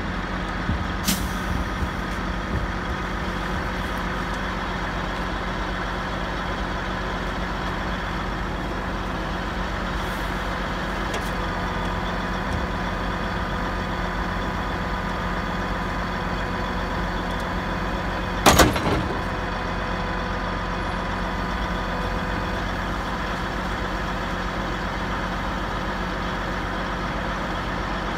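Heavy truck's diesel engine running steadily at an even pitch. A short, loud burst cuts in about two-thirds of the way through.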